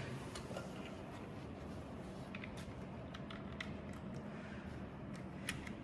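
Light clicks of small parts being handled while carbon brushes are fitted into a belt sander, a few scattered ticks over a steady low hum.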